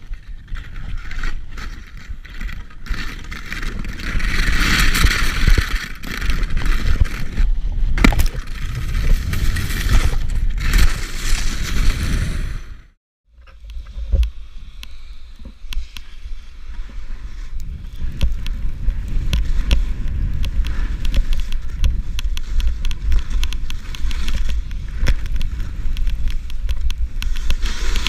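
Skis sliding and scraping over snow during a downhill run, with wind buffeting the microphone as a heavy low rumble. The scraping swells and fades with the turns. The sound breaks off briefly about halfway through, then resumes.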